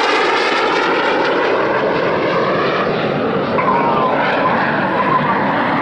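Jet noise from Red Arrows BAE Hawk aircraft flying past in display, a loud, steady rushing with a slowly shifting, phasing quality.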